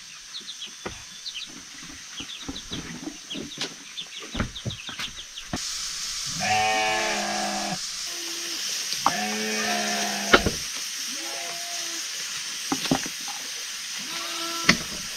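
Sheep bleating several times, the longer calls coming about six and nine seconds in and shorter ones after. Faint high chirps come before the first bleat, and a steady hiss runs under the calls.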